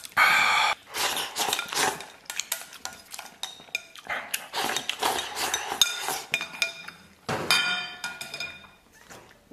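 Wooden chopsticks clicking and scraping against a ceramic bowl as the last rice is shoveled from the rim into the mouth. There are rapid clicks throughout, with two louder, longer bursts, one at the start and one about three-quarters through.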